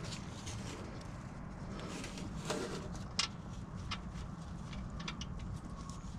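Scattered small clicks and taps of hands and tools working under a car, with one sharper tap about three seconds in, over a steady low hum.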